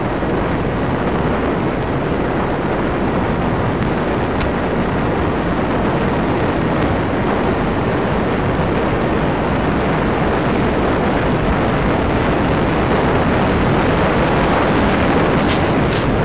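Steady, loud rushing hiss on an FPV model plane's onboard audio in flight, with a few short crackles of radio interference near the end.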